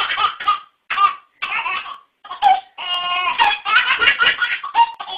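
A baby laughing in a string of short bursts with brief pauses between them.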